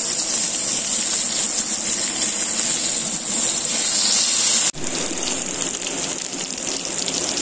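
Masala-coated fish shallow-frying in hot oil in a flat black iron pan, sizzling steadily. The sizzle breaks off for an instant about two-thirds through and then goes on.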